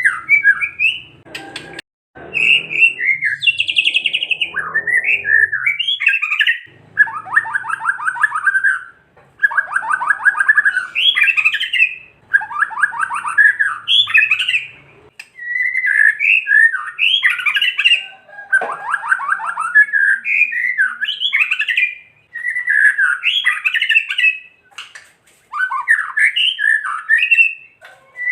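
White-rumped shama (murai batu) singing in a string of short phrases with brief gaps between them. The phrases mix fast rattling churrs, the "kretekan", with quick whistled notes that slide up and down. This is the agitated rattling song keepers play to rouse other shamas into singing.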